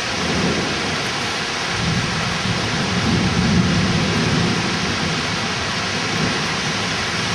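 Heavy rain pouring steadily in a thunderstorm, with a low rumble swelling up about two seconds in and fading by about five seconds.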